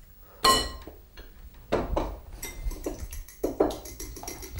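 A sharp clink of kitchenware on a glass or ceramic bowl about half a second in, ringing briefly, then a few softer knocks. From about two and a half seconds, a fast, even run of light clicking.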